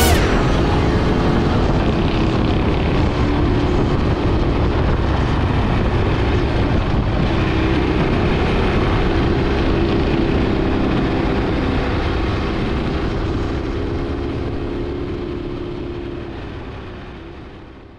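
Quad/ATV engine running steadily at cruising pace, fading out over the last few seconds.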